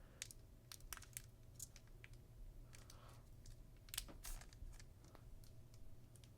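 Faint, scattered clicks and light rustling of Pokémon trading cards being drawn out of a foil booster pack and handled, with a couple of sharper clicks about four seconds in.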